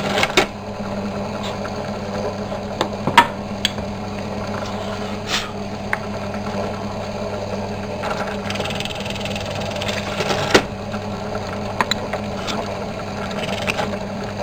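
Drill press running with a steady hum as its bit bores holes into pine pieces held in a jig, with a few short sharp knocks along the way.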